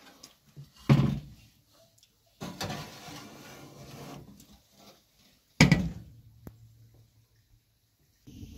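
Countertop electric oven being loaded. A sharp metal clank comes about a second in, then a metal baking pan scrapes across the oven's wire rack for about two seconds. At about five and a half seconds the oven door shuts with a loud bang, followed by a small click.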